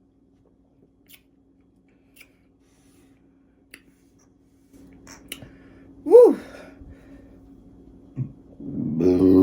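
A woman's long, low burp brought up by drinking carbonated Pepsi, starting near the end. It follows a short "woo!" a few seconds earlier, and before that only faint clicks.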